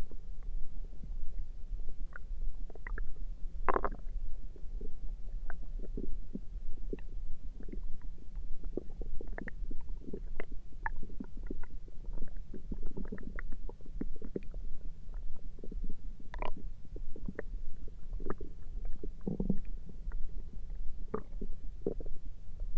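Human stomach gurgling: a busy stream of short gurgles and pops, several a second, with a few louder ones scattered through, over a steady low hum.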